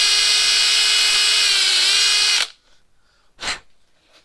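Cordless drill running at a steady speed with its bit in the threaded throttle cable inlet of a carburetor body, drilling the threads out; the motor stops abruptly about two and a half seconds in. A short click follows about a second later.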